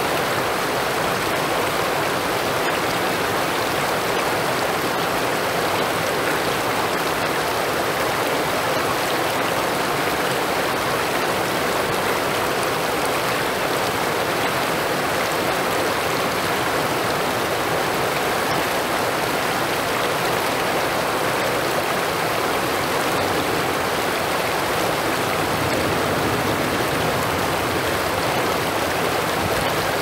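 Shallow river water rushing and splashing over rocks and around stone stepping stones: a steady, even rush with no break or change.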